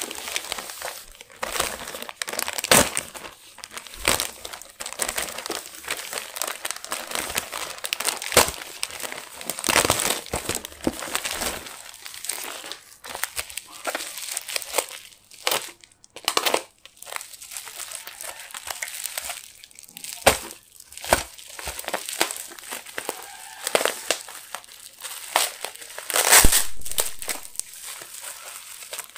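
Plastic bubble-wrap packaging crinkling and rustling as it is pulled open and unwrapped by hand, with irregular sharp crackles. The loudest crackle comes near the end.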